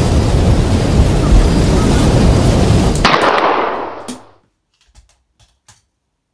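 A loud, rumbling wash of noise cuts off abruptly with a single sharp crack about three seconds in. The crack's echo rings and dies away over about a second, followed by a few faint clicks.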